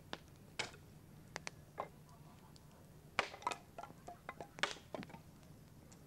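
Sharp, irregular wooden knocks and clacks as firewood is split into kindling on a chopping block and dry split pieces clatter against each other. The loudest strikes come about three seconds in and again near five seconds.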